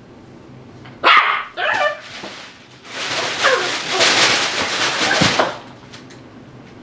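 Tibetan Terrier puppy barking twice in quick succession about a second in, followed by a couple of seconds of rustling with a few more yips.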